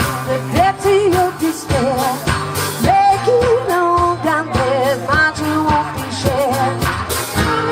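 Live band music: a wavering, held vocal or lead melody over a steady bass line and drum hits.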